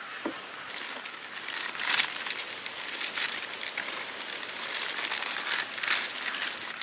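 Foil-lined Lay's potato chip packets crinkling and rustling as they are handled and emptied, with irregular crackles throughout.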